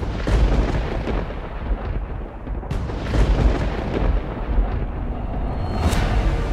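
Thunder rumbling deep and continuously, with a sharp crack about three seconds in and another near the end.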